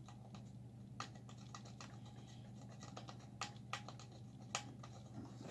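Light scraping and scattered small clicks of a tool scratching the coating off a circuit-board trace to bare it for soldering, over a faint steady low hum.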